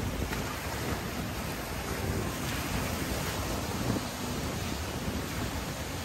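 Wind gusting against the microphone over a steady wash of sea surf.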